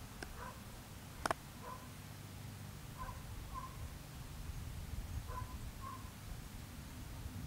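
Short, mid-pitched bird calls, mostly in pairs, a few times over a steady low rumble. A single sharp click about a second in is the loudest sound.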